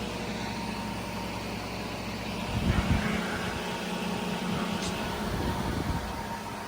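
Outdoor heat pump unit running: a steady mechanical hum with faint level tones from the fan and compressor. About two and a half seconds in, a louder low rumble rises and lasts about three seconds.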